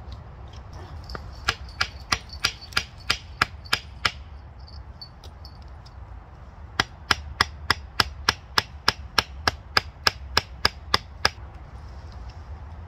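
A hand hammer driving wooden stakes into the ground: two runs of sharp, quick knocks, about three a second. The first run of about nine strikes begins a second and a half in, and the second run of about fifteen goes from about seven seconds in to eleven.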